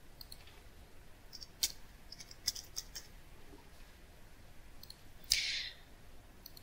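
Faint computer keyboard typing and mouse clicks: a few scattered light clicks, some in a quick cluster, with a brief hiss about five seconds in.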